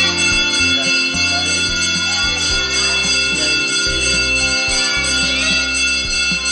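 Background music with ringing, bell-like tones held over a low bass line that changes note every second or so.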